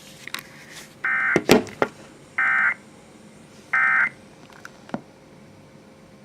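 Emergency Alert System end-of-message data bursts: three short, identical buzzy warbles about a second and a half apart, marking the end of the alert. A few sharp clicks come in between them, the loudest just after the first burst.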